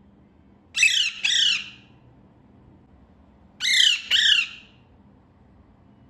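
A green parakeet squawking: two pairs of harsh calls, the first pair about a second in and the second about three seconds later.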